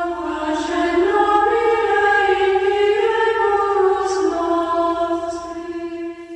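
A choir singing unaccompanied, holding a low note while the upper voices move slowly through sustained chords, fading out near the end.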